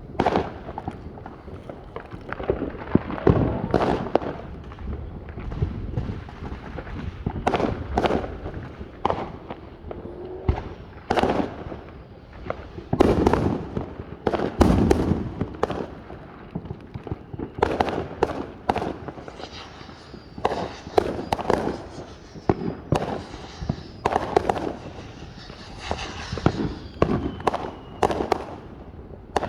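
Fireworks going off in quick, irregular succession: sharp bangs and crackles, several every few seconds, with thin falling whistles in the last third.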